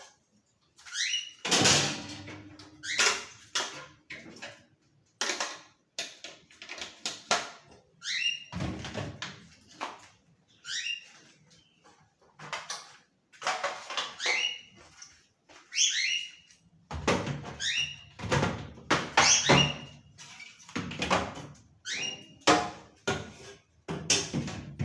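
Irregular knocks and thunks of refrigerator shelves, drawers and door being handled and wiped, with several short rising squeaks between them.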